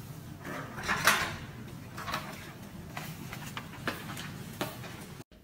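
Clicks and knocks from a glass office door with a metal pull handle being opened, the loudest about a second in, followed by a few footsteps on a hard floor.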